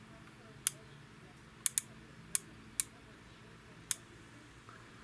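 Sous vide immersion circulator's temperature dial being turned by hand: six short, sharp clicks at uneven intervals as the setting is stepped up and down.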